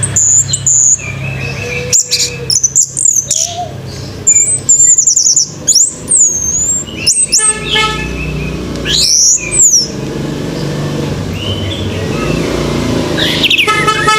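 Orange-headed thrush singing a rapid, varied song of whistled sweeps and chirps, in loud bursts for the first ten seconds, quieter for a few seconds, then loud again near the end. A steady low hum runs underneath.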